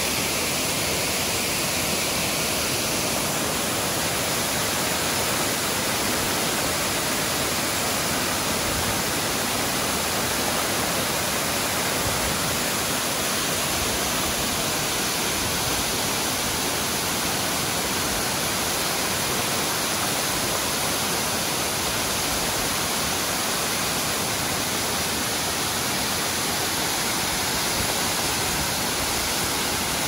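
Waterfall pouring over a man-made cut-stone weir in several streams into a plunge pool: a steady, unbroken rush of falling water.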